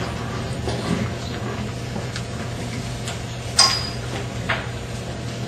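Light knocks and handling noises over a steady low hum, with one sharp clack about three and a half seconds in and a smaller one a second later.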